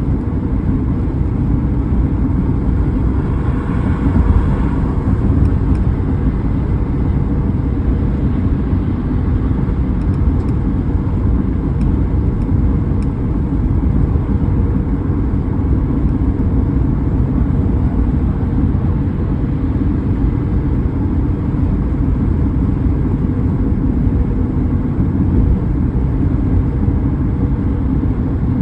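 Car driving steadily, a continuous low rumble of road and engine noise, with a brief swell about four seconds in.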